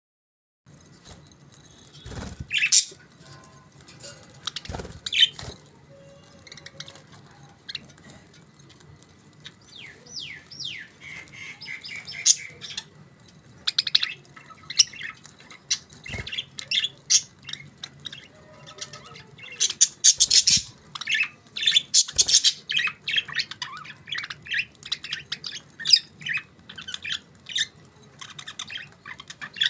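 Budgerigars chirping and chattering, with short squawks and a few quick sliding whistles, busiest about two-thirds of the way through. A few dull knocks sound among the calls.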